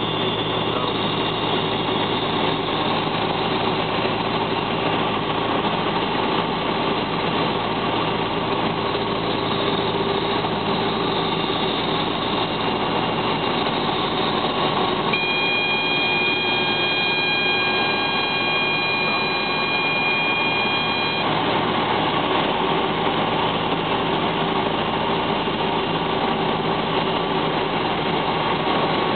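Steady rotor and piston-engine noise inside the cabin of a Robinson R44 helicopter during a practice autorotation descent. About halfway, a steady high tone of several pitches at once comes in and cuts off suddenly some six seconds later.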